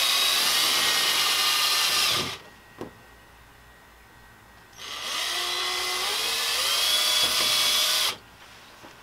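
Ryobi cordless drill boring pilot holes into the plastic kayak hull, in two runs: the first stops about two seconds in, and after a pause a second run starts near the middle, its whine rising slightly as it gets up to speed, and stops shortly before the end.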